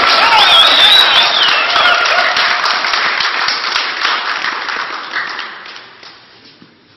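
Applause from a small group clapping by hand, with voices calling out over it in the first couple of seconds. The clapping dies away over the last few seconds.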